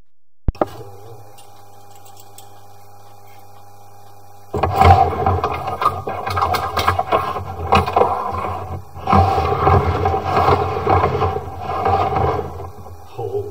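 A click, then a steady low hum. About four and a half seconds in, loud, irregular scraping and rattling starts as the sewer inspection camera's push cable is pulled back out through the clay drain line.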